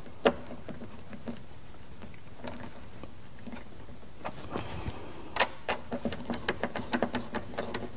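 Light plastic clicks and taps as a speaker is held and its mounting screws are started by hand in a car's inner door panel: one click at the start, then a quiet stretch, then a run of irregular clicks from about four seconds in.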